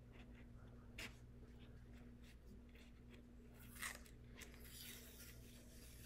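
Very quiet room with a faint steady hum, broken by a few faint ticks and a soft rustle as a small piece of tape is picked and peeled up off a rhinestone template. The clearest ticks come about a second in and near four seconds in.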